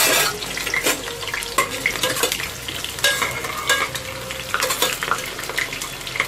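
Chopped onions sizzling in hot mustard oil in a pressure cooker, frying toward light golden brown, with irregular clicks and scrapes as a steel slotted spoon stirs them against the pot.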